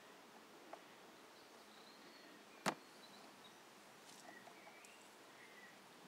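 A single sharp crack about halfway through as a steel hive tool prises a tight-fitting wooden hive frame loose, with a fainter click near the start. Otherwise near silence, with a few faint high chirps in the background.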